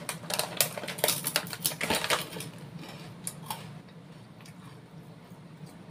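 Plastic bag of kerupuk crackers crinkling and the crisp crackers crackling as they are taken out over a bowl, dense for about the first two seconds, then a few scattered light clicks of a spoon and fork in a ceramic bowl.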